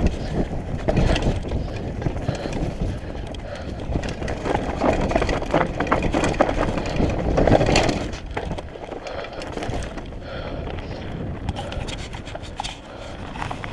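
Mountain bike rolling fast over a dirt trail: tyre noise with many sharp clicks and knocks from the bike rattling over the ground. It eases off about eight seconds in.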